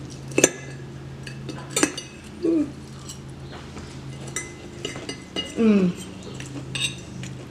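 Metal forks clinking and scraping against a ceramic plate: a few sharp, separate clinks.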